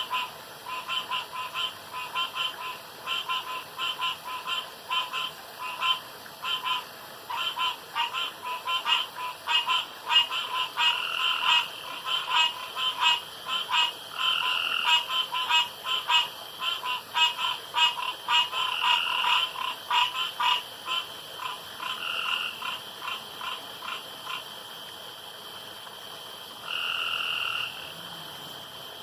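Frogs calling in a chorus: many quick, repeated croaking calls that overlap densely, then thin out after about 24 seconds. One longer steady call comes near the end.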